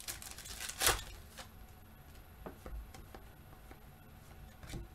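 Foil trading-card pack wrapper crinkling as it is torn open, loudest just under a second in, followed by a few faint clicks of the cards being handled.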